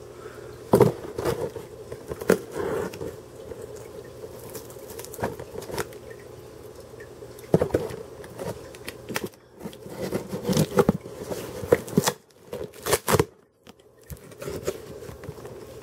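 A cardboard package being handled and opened, with scattered knocks and clicks and the crinkling and tearing of packaging, over a faint steady hum.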